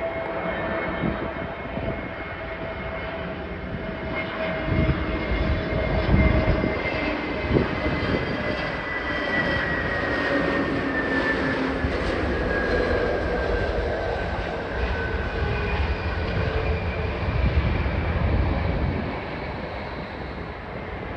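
Airbus A321neo's CFM LEAP-1A turbofan engines on landing approach: a steady jet rumble with a high whine that slides down in pitch as the aircraft passes, easing off near the end.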